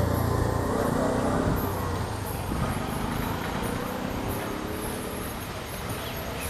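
Ashok Leyland diesel bus engine running as the bus moves past, loudest at the start and fading away, with its engine note shifting in pitch about two seconds in.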